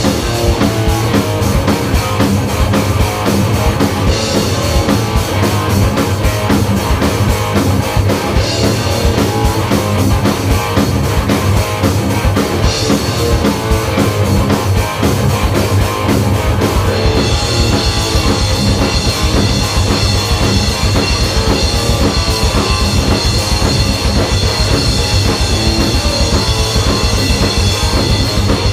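Live band playing a loud metal song on electric guitars and a drum kit. About seventeen seconds in the drumming gets busier and cymbals ring brighter.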